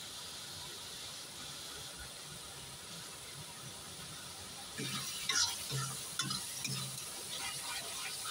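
Tomato-and-spice masala sizzling steadily in a metal kadhai. About five seconds in, a metal spatula starts stirring it, scraping and clicking against the pan.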